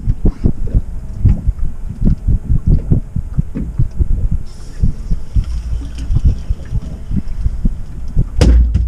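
Irregular low thumping of small waves slapping a boat's hull, with wind buffeting the microphone; a louder thud near the end.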